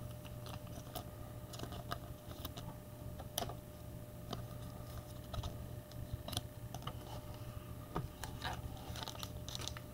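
Football trading cards being handled and flicked through by hand: scattered light clicks and ticks of card stock, over a faint steady hum.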